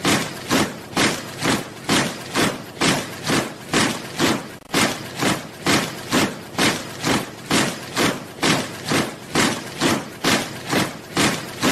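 Soldiers marching in step, their footfalls landing together as one sharp tread at an even pace of about two steps a second.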